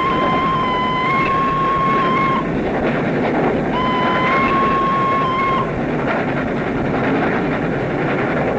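A steam locomotive's whistle blowing two long, steady blasts over the constant running noise of the train. The first stops about two and a half seconds in, and the second sounds about a second later for about two seconds. The sound is heard as an old reel-to-reel tape recording.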